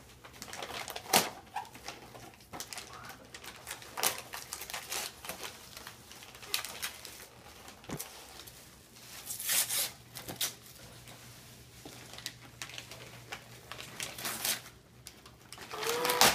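Wrapping paper tearing and crinkling and tissue paper rustling as presents are unwrapped by hand, in irregular crackles and short bursts.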